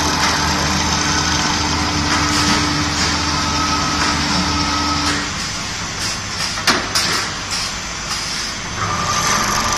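Twisted wire brush making machine running, its electric motors giving a steady hum with a whine. About halfway through the low hum and tone drop away. A couple of seconds later come a few sharp clacks, and a higher whine starts up near the end.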